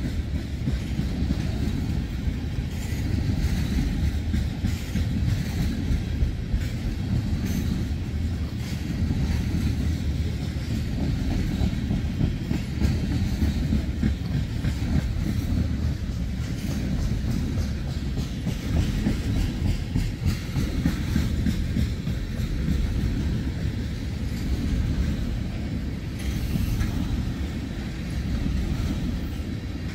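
Freight train of tank cars rolling past: a steady low rumble with the wheels clicking over rail joints.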